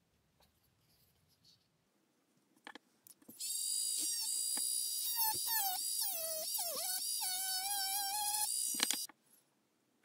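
Small electric mini drill whining at high speed. Its pitch sags and wavers as the bit bores into the thin wooden speaker box, then holds steady before the motor stops near the end. A few light handling clicks come first.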